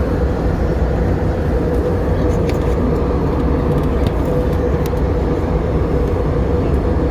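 Steady cabin noise of an airliner in flight: a deep, even rumble of engine and airflow noise with a faint steady hum tone over it.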